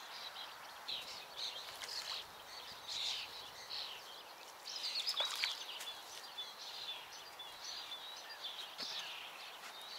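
Small songbirds singing in short, repeated high chirping phrases over a quiet outdoor background, with a few faint clicks about five seconds in.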